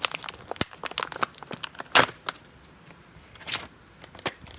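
Plastic packaging crackling and small tools clicking as a tubeless tire repair kit's tools are taken out of their box, with a loud crack about two seconds in.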